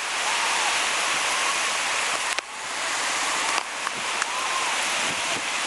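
Steady rushing wash of sea surf on a beach, with two sudden breaks in the sound partway through.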